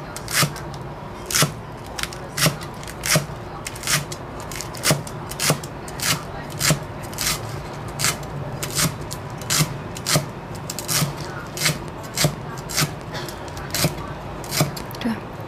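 Cleaver chopping garlic chives on a round wooden chopping board: a steady knock of the blade on the wood about twice a second.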